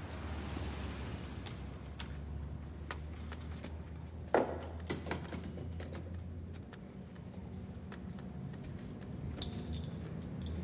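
Low steady room hum with scattered small clicks and knocks of objects handled on a wooden table, and a sharp clack about four seconds in followed by a second one half a second later. The hum stops about two-thirds of the way through.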